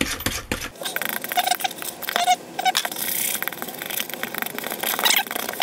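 Sloppy boilie paste being worked by hand in a plastic bowl: a run of wet, sticky clicking and squelching, with a few short squeaks about one and a half to two and a half seconds in.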